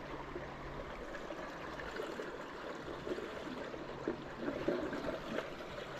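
Creek water running steadily, a continuous even rush with no breaks.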